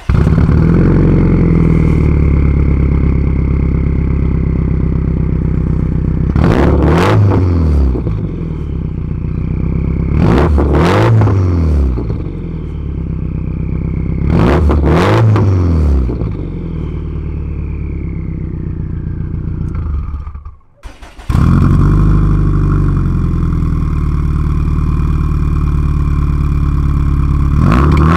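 Subaru WRX STI's turbocharged flat-four idling through its Tomei exhaust with no silencer fitted, blipped three times about four seconds apart, each rev rising and falling in about a second. After a short break the engine idles again with the Tomei silencer in mode 1, and is revved once more near the end.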